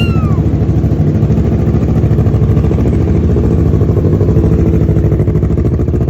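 Kawasaki Ninja 650's parallel-twin engine idling steadily through a Two Brothers full-system exhaust, with an even, unchanging pulse.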